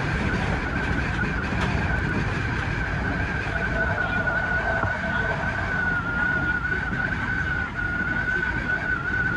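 Odakyu 3000 series electric commuter train running along the line, heard from the driver's cab: a steady rumble of wheels on rails with a constant high whine over it.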